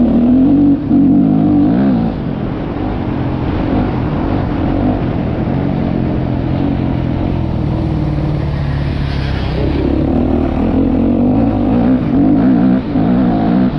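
Yamaha YZ motocross bike engine revving hard and rising and falling in pitch as the rider accelerates and backs off around a dirt track, heard from the rider's helmet. The sound dips briefly about a second in and again near the end.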